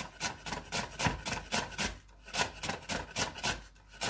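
Kitchen knife slicing a red onion into rings on a wooden cutting board: a quick, even run of cuts, about four or five a second, each ending in a tap of the blade on the board, with short pauses about two seconds in and near the end.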